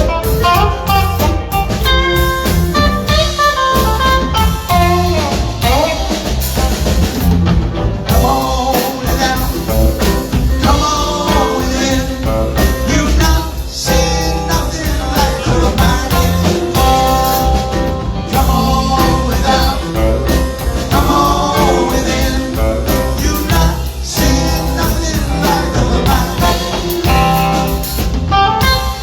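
Live band playing a blues song: guitar over a drum kit, with some singing.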